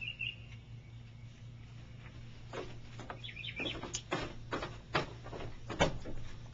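Young raccoon giving short high chirps and chitters while play-wrestling with a small dog, with a run of sharp knocks in the second half as the pair tumble on a wooden porch swing.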